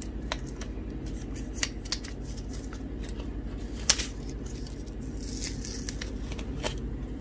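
Adhesive tape being picked at and peeled off the metal backplate of a replacement laptop keyboard: small scratchy clicks and crackles, a sharper click about four seconds in, and a brief peeling rasp a little after.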